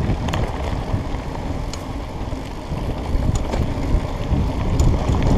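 Mountain bike rolling fast down a dirt singletrack: wind buffeting the microphone over tyre rumble, with a few sharp clicks and rattles from the bike over the bumps.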